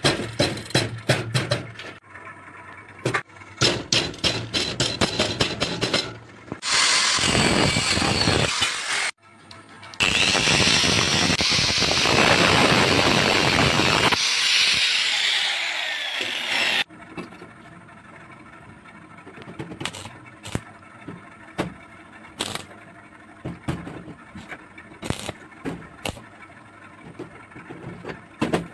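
Angle grinder with a thin cut-off disc cutting a small metal rod held in a bench vise, in two runs of about two and seven seconds; the disc winds down with a falling whine at the end of the second run. Before the cutting there is a run of quick metallic taps and clicks, and after it light clicks of small metal parts handled on a steel bench, over faint background music.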